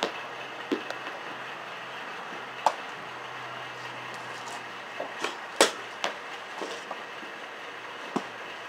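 Scattered sharp knocks of softballs being bunted and hit, about six in all, the loudest near the middle, over a steady background hiss.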